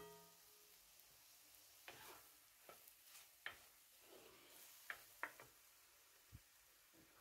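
Minced meat sizzling in a wide pan as it is stirred with a wooden spoon: a steady faint sizzle with scattered scrapes and taps of the spoon against the pan. At the start, the ring of the metal lid just lifted off the pan fades away.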